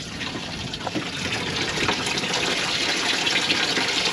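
Steady rush of gushing water that starts abruptly and grows slightly louder.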